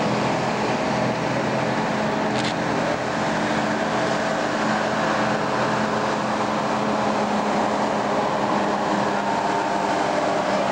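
Engines of heavy old military trucks running steadily at a slow crawl as they drive past, a six-wheeled cargo truck and then a truck towing a loaded trailer. A brief sharp click or clank comes about two and a half seconds in.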